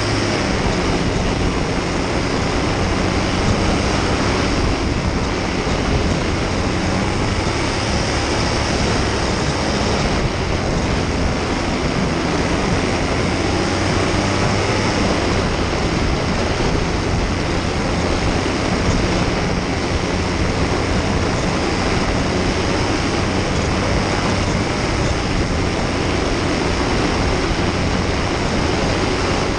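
Paramotor engine and caged propeller running steadily at cruise power in flight, a constant drone under a steady rushing noise.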